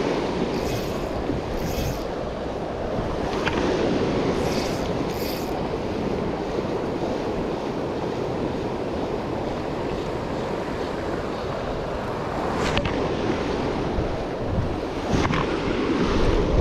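Steady rush of a fast-flowing river, with wind buffeting the microphone and a few faint clicks and brief high swishes over it.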